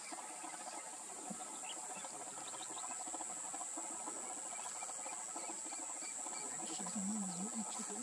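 Steady high-pitched insect chorus from the grassland, with a few short faint bird chirps scattered through it. Near the end, a low wavering sound rises over the chorus.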